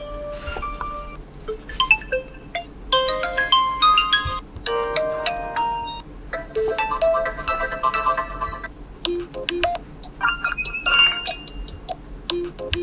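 Oppo Find X5 Pro alarm tones playing one after another: short electronic melodies of clear pitched notes, each lasting a couple of seconds before the next one starts.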